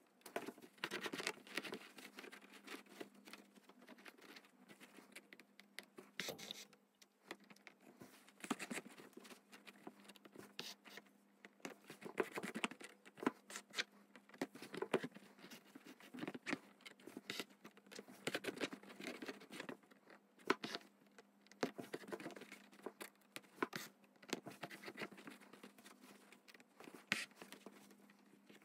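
Needle and thread drawn through fabric stretched taut in a wooden embroidery hoop, with hands rustling sequined tulle: irregular soft scratches, rustles and crinkles over a steady low hum.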